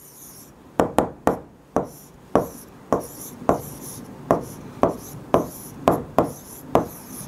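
A marker pen writing on a board in a run of short, sharp strokes, about two a second, with a faint high scratching between them.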